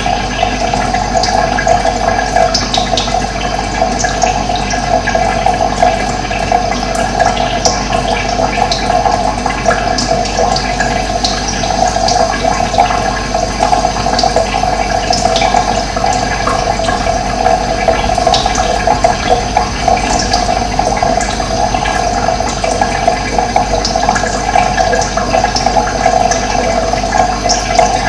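Running water flowing steadily with an even rush, with short high bird chirps scattered over it.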